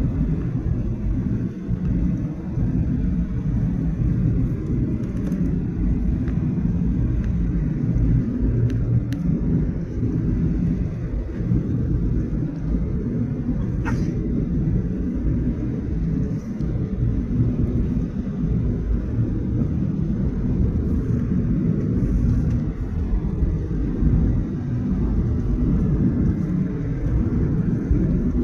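Boeing 737-800 airliner cabin noise heard from inside: a low, unsteady rumble of the engines and airflow. A single short click about halfway through.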